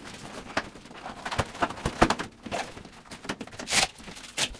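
Irregular knocks, clicks and rustles of a blower door fan being set up by hand: the fan and its round plastic cover plate bumped and fitted into the nylon door shroud. The sharpest click comes about two seconds in and a longer rustle near the end.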